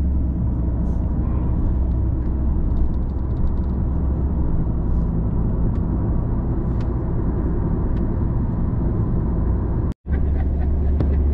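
A motor running steadily with a low, even hum. The sound drops out for an instant about ten seconds in.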